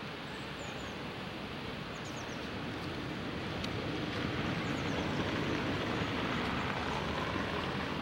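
A steady rushing noise that swells a little about halfway through, with a few quick, high bird chirps over it.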